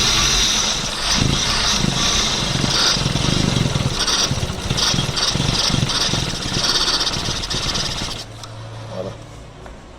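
Chevrolet car engine, its timing-chain kit newly replaced, running at raised revs with uneven surges, then dropping sharply to a quieter steady idle about eight seconds in.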